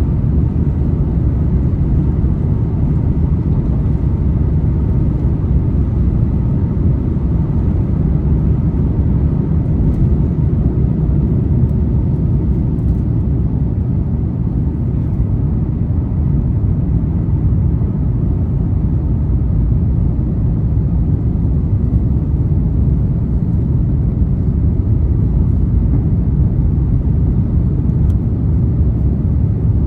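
Steady low rumble of an Airbus A350-900's Rolls-Royce Trent XWB engines and airflow, heard inside the passenger cabin, with faint steady tones riding on it.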